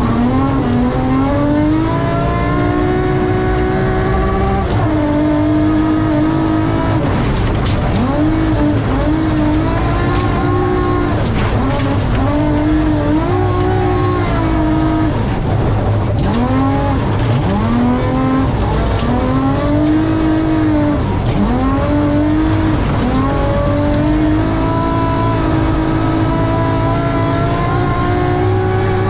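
BMW M3 rally car's engine heard from inside the cockpit at stage speed, the revs climbing and dropping again and again through gear changes and lifts. Stones off the gravel road tick against the car now and then.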